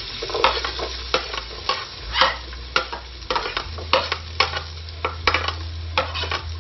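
Garlic frying in hot oil, sizzling, while a ladle stirs it with a short scrape about twice a second.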